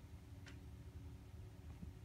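Near silence: low room hum, with one faint short high click about half a second in.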